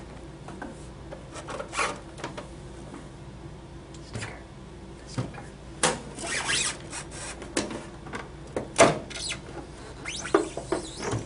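Handling noises as the back case of an electric cigarette-making machine is opened: scattered clicks, knocks and scrapes, with a longer scraping rub around the middle and a sharp click near the end.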